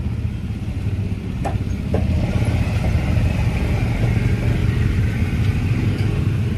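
Small motor scooter engine running at low speed close by as it creeps past, getting louder from about two seconds in. Two short clicks are heard a little before that.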